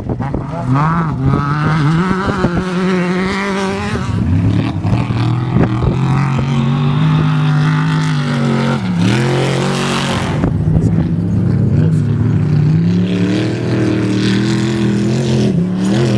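Off-road race vehicle's engine running hard, its pitch rising and falling as it revs, with a sharp drop and climb about nine seconds in, then a short burst of hiss.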